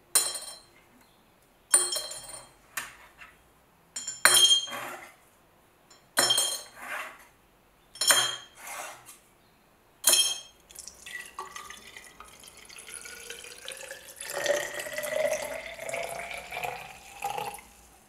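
Rusty steel pocket-knife parts dropped one at a time into a tall glass jar, each landing with a sharp ringing clink, about every couple of seconds. Then liquid is poured into the jar, its pitch rising as the jar fills, to soak the parts for rust removal.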